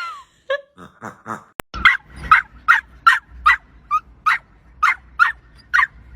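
A dog barking over and over in short sharp barks, about two a second, from about two seconds in; a few fainter barks come before that.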